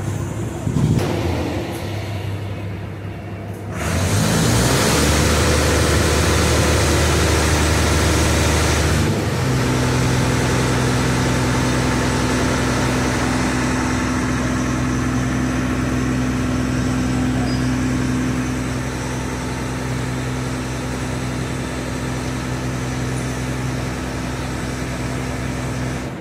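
Diesel engine of a roll-on roll-off river ferry: it opens up about four seconds in with a loud rushing noise and deep hum, then about five seconds later settles into a steady low drone as the ferry gets under way.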